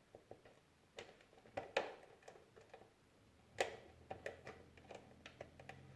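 Faint scattered clicks and taps of small parts being handled as meter probes are set on the contacts of a Moulinex grinder's speed switch during a continuity test; the sharpest taps come about two seconds and three and a half seconds in.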